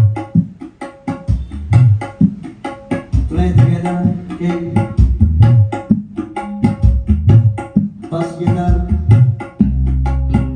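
Drum-heavy music with strong bass played loud through loudspeakers driven by an Ashley HM-1000 power amplifier on test.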